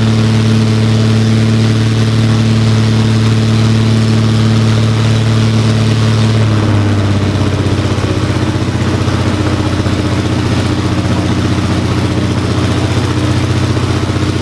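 Rebuilt Lycoming O-540 six-cylinder, air-cooled, horizontally opposed aircraft engine running on a test stand. It runs steadily, then drops to a lower speed about halfway through, where the individual firing pulses become easier to pick out.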